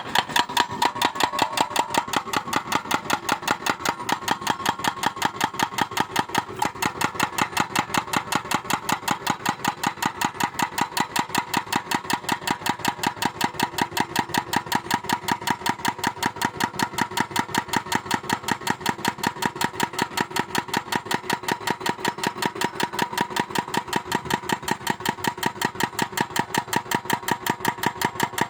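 Excavator engine catching right at the start and then idling steadily with an even, rapid pulse.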